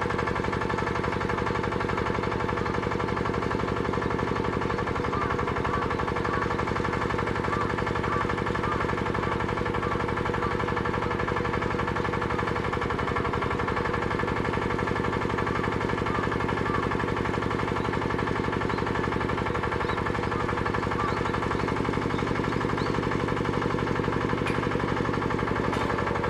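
Engine-driven pump of a geotechnical boring rig running steadily with a rapid, even 'dadada' pulse.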